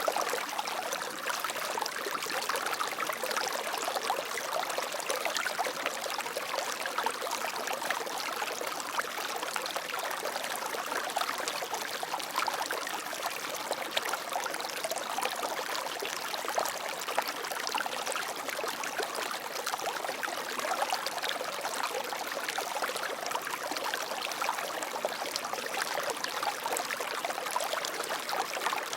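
Water flowing and splashing steadily in a stream, a busy trickling rush with no breaks.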